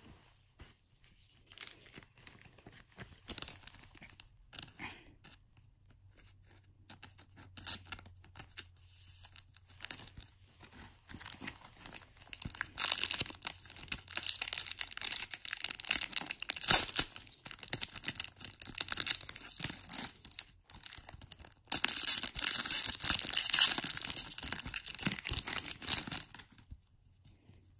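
Foil wrapper of a Pokémon HeartGold SoulSilver booster pack being torn open and crinkled by hand. Light rustling at first, then loud crinkling and tearing in two stretches from about halfway through, with a brief break between them.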